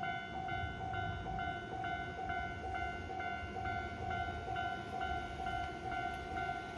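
Japanese railway level crossing warning bell ringing steadily, a little over two strikes a second, over a low rumble.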